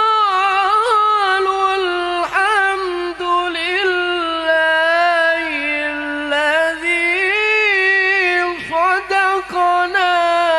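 A young man's voice reciting the Quran in the melodic, ornamented tilawah style, holding long wavering notes with quick trills through a handheld microphone and PA loudspeaker.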